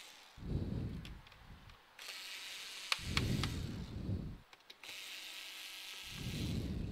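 Cordless electric screwdriver running in three short bursts, with small clicks between them, as it backs screws out of a laptop's top case.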